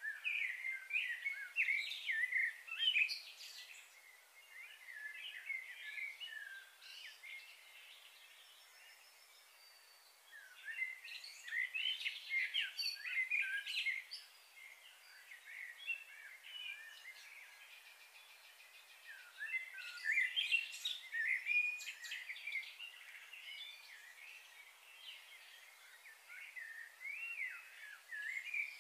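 Birds chirping and twittering in bursts of a few seconds, four times, over a faint steady hiss.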